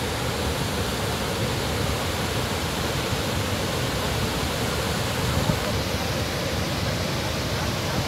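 Steady rush of a high waterfall running in spate, with the churning of the flood water in the pool below it.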